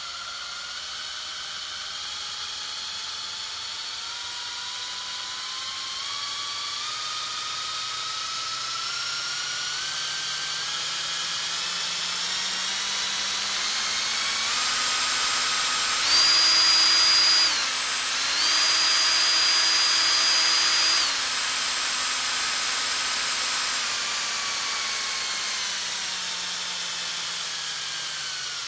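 Medium-size power drill whining as its motor speeds up slowly, the pitch climbing for about fifteen seconds. It runs at full speed, loudest there, with a brief dip partway, then winds down with the pitch falling steadily.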